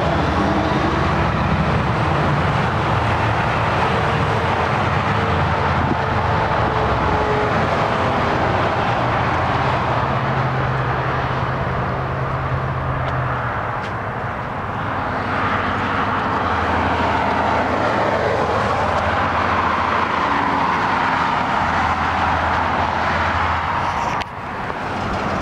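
Steady motor-vehicle noise: engines running and traffic, a continuous rushing sound with a low hum that shifts in pitch a few times.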